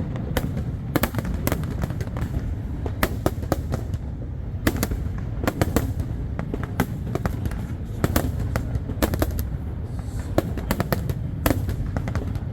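Fireworks going off in quick succession: irregular sharp bangs and cracks, several a second, over a steady low rumble.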